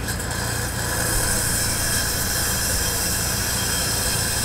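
Compressed air hissing steadily through a Fiat 500 F 499cc air-cooled twin during a leak-down test, escaping past the piston rings. It sounds aggressive, but this is normal ring leakage with a low reading of about 10%.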